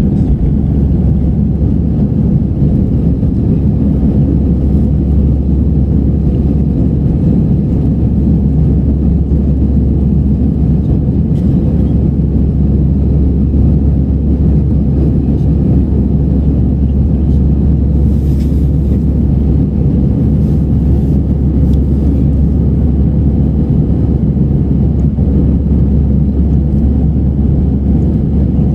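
Steady low rumble inside the cabin of an Airbus A320-family airliner climbing after takeoff: the jet engines at climb power together with airflow over the fuselage.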